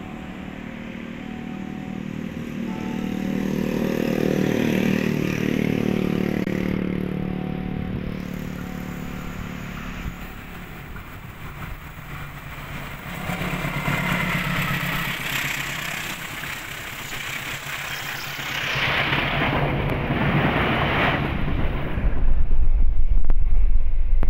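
Diesel-electric locomotive approaching with its engine running, then passing with loud wheel-on-rail noise and clatter from its carriages. Near the end, a heavy low rumble as the train runs into a tunnel.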